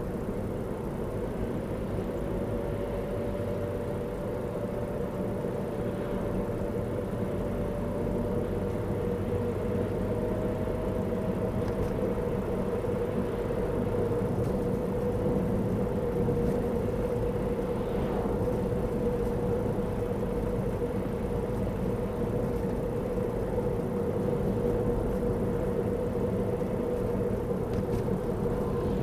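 Car driving along a road, heard from inside the cabin: a steady rumble of tyres and engine with a constant hum.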